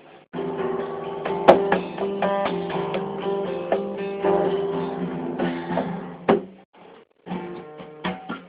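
Instrumental music with plucked and strummed string notes, breaking off about six and a half seconds in and starting again a second later.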